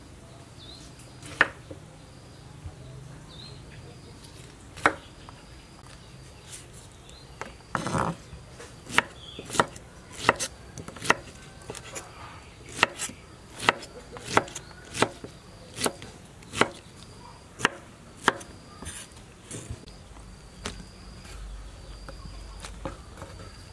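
Kitchen knife chopping peeled pineapple on a wooden cutting board. A few scattered knocks come first, then a steady run of chops at roughly one a second through the middle, which stops a few seconds before the end.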